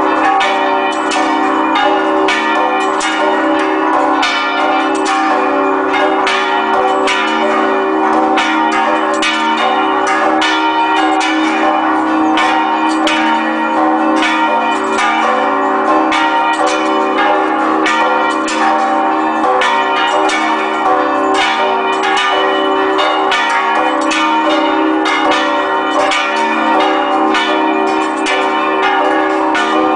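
Church tower bells ringing a festive repique: several bells struck over and over in quick succession, their tones ringing on together, calling the faithful to Mass.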